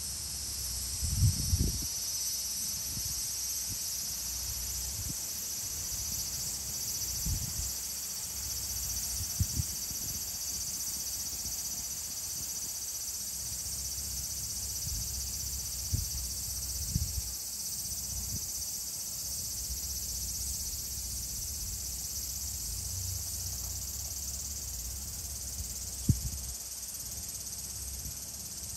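Steady, high-pitched chorus of insects trilling without a break. A few short, low thumps break in, the loudest about a second in and near the end.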